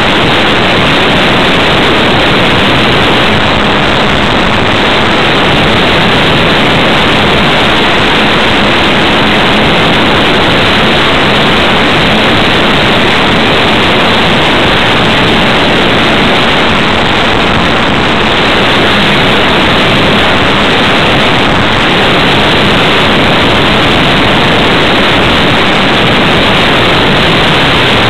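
Steady loud rush of airflow and propeller noise, picked up by a camera riding on a ParkZone T-28 Trojan electric RC plane in flight, with a faint steady hum from its motor underneath.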